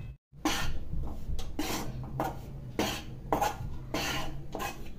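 Spatula scraping and stirring wheat flour around a metal kadhai, in quick repeated strokes about three a second. The flour is being dry-roasted in ghee on low heat and kept moving so it does not stick to the bottom and burn.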